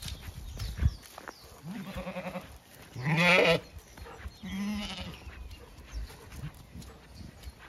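Zwartbles ewes bleating: three wavering bleats, the second and loudest about three seconds in, the last about five seconds in. Low shuffling runs underneath, with a sharp thump about a second in.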